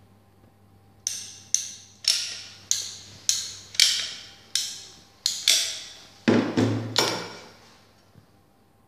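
Hand caulking gun being pumped to push adhesive out of a cartridge: about a dozen sharp clicks, roughly two a second, each with a short ringing tail, the heaviest ones near the end.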